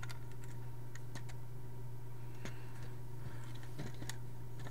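Scattered small plastic clicks and taps from Lego bricks of a clock-tower model being handled, over a steady low electrical hum.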